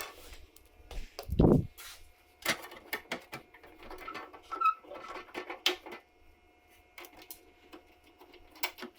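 Scattered clicks and light taps of an Allen key and small bolts being worked loose from a car's airbox top plate, with one louder dull thump about a second and a half in.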